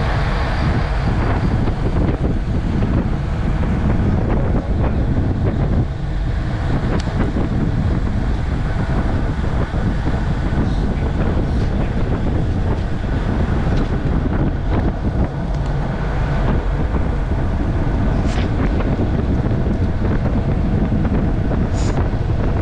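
Wind buffeting the microphone of a camera on a road bike speeding downhill: a steady, loud low rumble, with a couple of faint clicks near the end.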